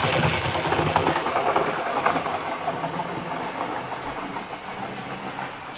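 Model railway locomotive's small electric motor whirring, its wheels clicking over the track, fading as it runs away.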